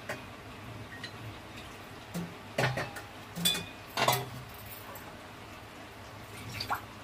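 Steel utensils clinking and knocking against a steel kadhai several times, the loudest strikes near the middle, one ringing briefly.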